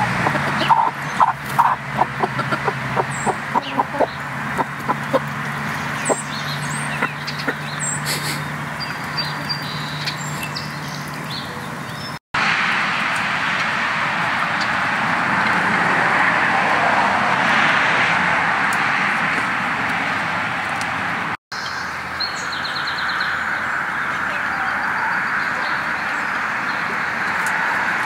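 Hens pecking grain from a metal feed pan, a quick irregular run of sharp beak taps on metal, with chickens clucking. Later a steady rushing noise that swells and eases sits under the flock.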